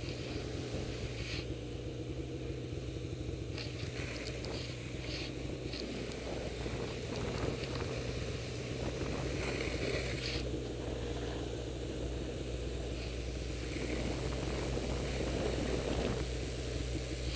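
Snowmobile engine running steadily as the sled rides over snow, a constant low drone, with a few brief scraping or brushing sounds along the way.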